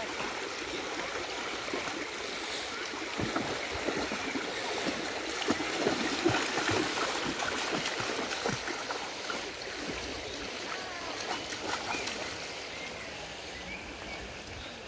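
Shallow stream flowing over stones, with two dogs splashing as they wade through it. The splashing comes in irregular bursts and is busiest in the middle.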